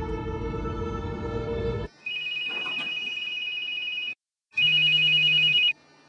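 Suspense music with held droning tones cuts off about two seconds in. Then a telephone rings twice, a steady two-tone ring, the second ring shorter and louder.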